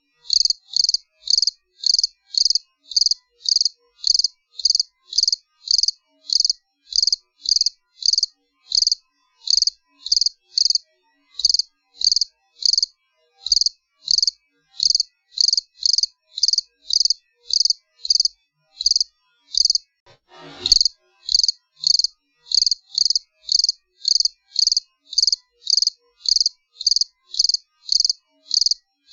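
A cricket chirping steadily, short high chirps at about two a second. A single sharp click breaks in about twenty seconds in.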